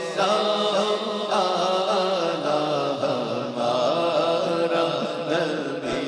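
A man's voice singing a naat, an Urdu devotional song, drawing out one long, wavering melismatic line on a held vowel without breaking for words.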